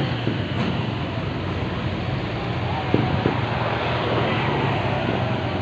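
Roadside background of a steady vehicle engine hum, with two short taps close together about three seconds in.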